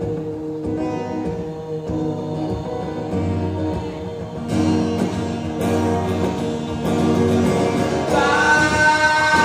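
Recorded music with sustained chords. A deep bass comes in about three seconds in, and the music grows louder and fuller from about halfway.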